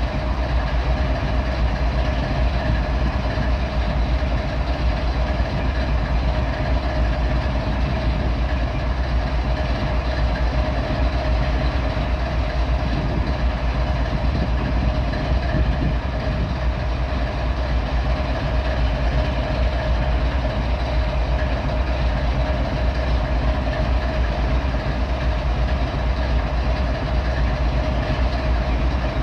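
GE ES44AC diesel-electric locomotive's GEVO-12 V12 diesel idling steadily: a deep, even rumble with a constant hum above it.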